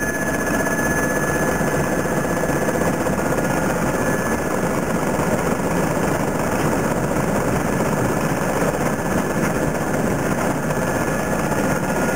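Powerscreen Warrior 800 mobile screening plant running at work screening topsoil: its diesel engine and vibrating screen deck make a loud, steady mechanical din that never lets up.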